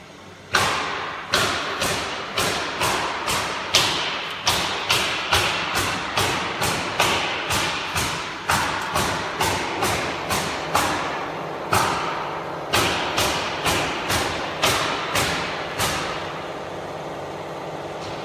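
A run of sharp knocks, roughly two a second, each ringing briefly, over a steady hum; the knocking stops a couple of seconds before the end.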